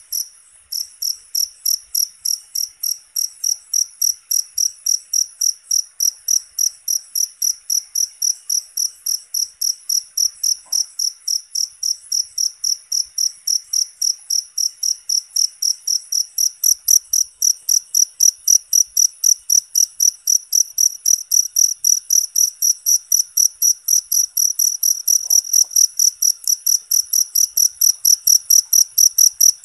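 A cricket chirping in a steady, even rhythm of about three high-pitched chirps a second, pausing briefly just after the start and growing a little louder in the second half.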